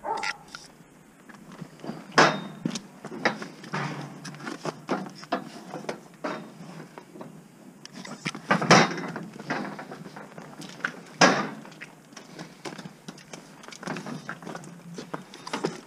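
Cattle moving in a metal crush on concrete: irregular knocks, hoof steps and clanks against the steel rails, with three louder bangs about two, nine and eleven seconds in.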